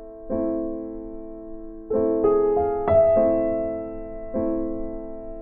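Background piano music: slow, soft chords, each struck and left to fade before the next, about every one to one and a half seconds.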